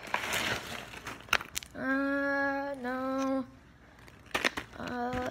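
A boy singing two held notes in a sing-song voice, the second slightly lower, with a few light taps around them.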